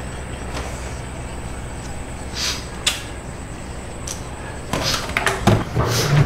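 Steady low room hum with a couple of faint clicks, then, near the end, a cluster of knocks, scuffs and low thuds as a man gets up from his chair and moves about.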